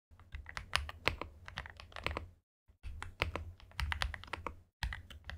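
Weikav WK68 65% mechanical keyboard being typed on: a quick, uneven run of key clacks, broken by two short silent gaps.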